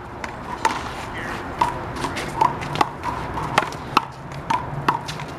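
Big blue rubber handball being hit by hand and smacking off the wall and court in a one-wall rally: about a dozen sharp smacks at irregular intervals, each with a short ring.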